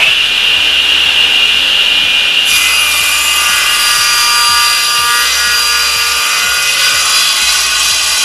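SIP 01332 10-inch cast iron table saw running at full speed with a steady high whine. About two and a half seconds in, the blade bites into a board and a harsh cutting hiss joins the whine as the board is cross cut.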